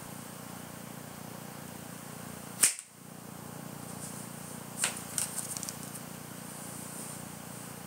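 A loud sharp click about two and a half seconds in, then another click near five seconds followed by a quick run of small clicks, over a steady hiss with a faint high whine.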